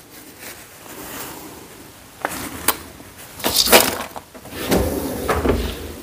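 Kitchen handling noises while food is put out for a cat: two sharp clicks, then bouts of scraping and knocking from a bowl and utensil.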